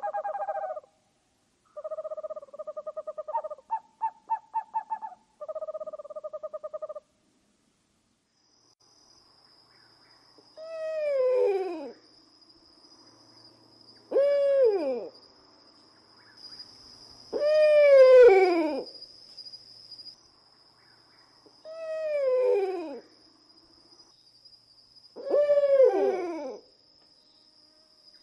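Owl calls: first several short bursts of rapid trilling, then five drawn-out calls that fall in pitch, coming about every three and a half seconds. A thin, steady high whine runs behind the later calls.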